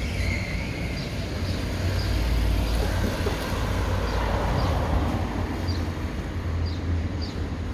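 Street traffic: a car driving past, swelling in the middle, over a steady low rumble.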